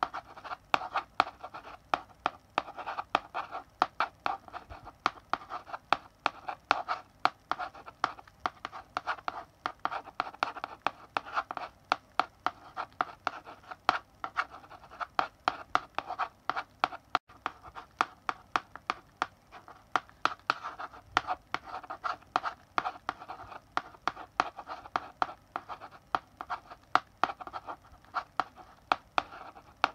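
Chalk writing on a blackboard: an uneven run of sharp taps and scratchy strokes, several a second.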